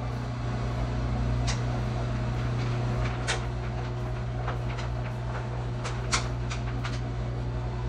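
Shower curtain hooks clicking and scraping along the curtain rod as the curtain is pulled aside, a series of short sharp clicks, over a steady low hum.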